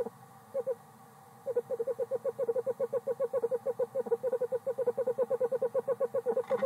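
A male owl's trilling: a fast, even run of low hoots at about eight to ten a second, breaking off briefly near the start and then running on steadily.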